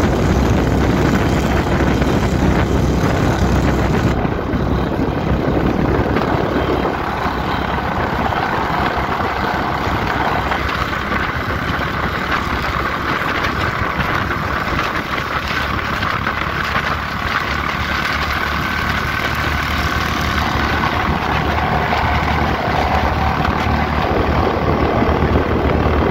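Motorcycle riding along a road at speed: steady engine noise mixed with wind rush over the microphone.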